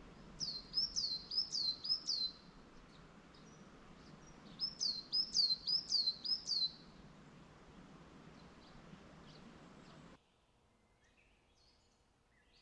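A songbird singing two short phrases, each a quick series of about six identical high, sweeping notes, a couple of seconds apart, over a steady outdoor hiss that cuts off abruptly near the end.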